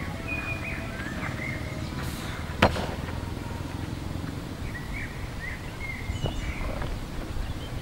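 Small birds chirping in short, quick calls over a low wind rumble, with one sharp knock about two and a half seconds in and a fainter click near the end.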